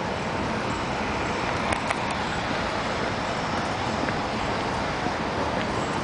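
Steady city street traffic noise from passing cars, with a couple of faint clicks about two seconds in.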